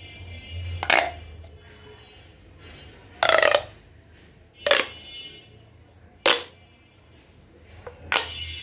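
Corrugated plastic pop tube being stretched and squeezed, giving five sharp crunchy pops at uneven intervals, the second one a longer crackling run.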